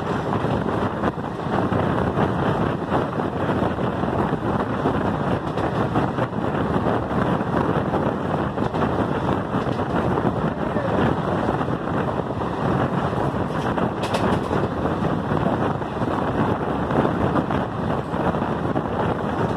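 Steady running noise of a moving train heard from on board, with wind rushing over the microphone.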